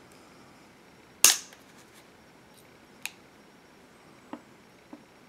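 Diagonal cutters snipping through a stiff 22-gauge coil wire lead, a single loud, sharp snap about a second in, followed by a smaller click and a couple of faint clicks.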